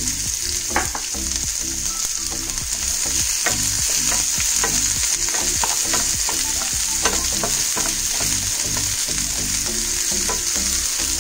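Chopped small onions sizzling steadily in hot oil in a non-stick pan, with frequent short clicks and scrapes of a wooden spatula stirring them as they sauté.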